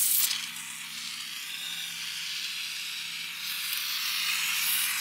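Polyurethane foam hissing out of a foam gun as it is sprayed into a joint between insulation boards. The hiss is loud briefly at the start, softer for a few seconds, then louder again from about three and a half seconds in.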